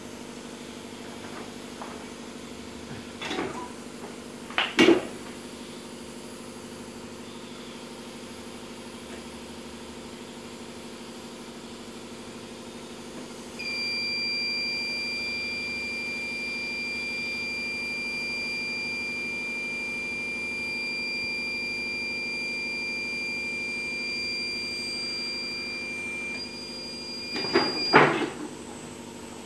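Heat press worked by hand: a couple of knocks as it is loaded, then, once the press is clamped shut, a steady high-pitched electronic beep tone for about fourteen seconds, ending with clunks as the press is opened again.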